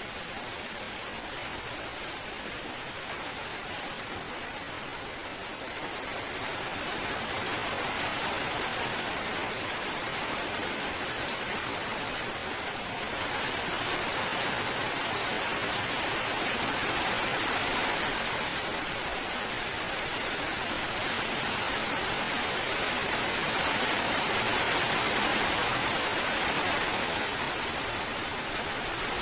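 Steady rainfall: a dense, even hiss of rain that swells a little louder several seconds in and again near the end.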